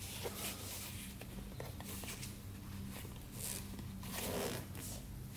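Work-gloved hands handling an ATV headlight housing: several short scrapes and rustles of glove fabric rubbing against the housing and its rim, over a faint steady low hum.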